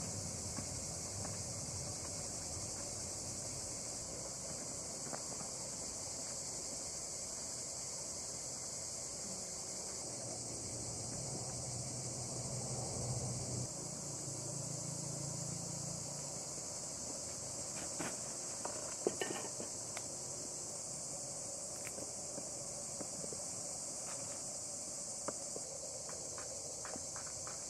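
A steady, high-pitched chorus of forest insects, unbroken throughout. Soft rustling comes through in the middle, and a few sharp clicks and snaps about two-thirds of the way in.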